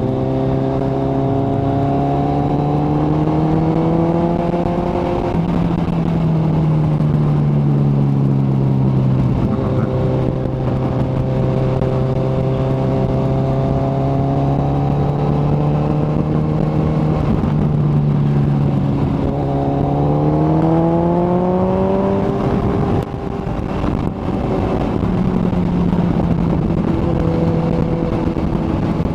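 Kawasaki ZX-14R's inline-four engine running under way, its pitch climbing slowly then holding steady, climbing again about two-thirds through, with a brief dip near the end as the throttle eases off.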